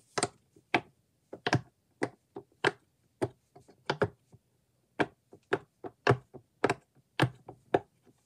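Rainbow star-shaped silicone pop-it fidget toy being pressed bubble by bubble: a string of sharp pops, about two a second, with fainter pops in between.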